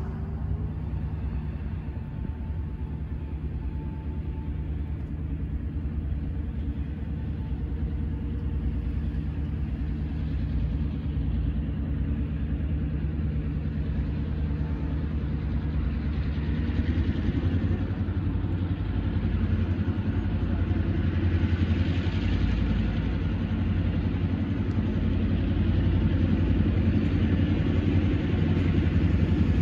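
EMD GP38-3 diesel locomotive, with a 16-cylinder EMD 645 two-stroke engine, approaching slowly; its engine rumbles steadily and grows gradually louder as it nears.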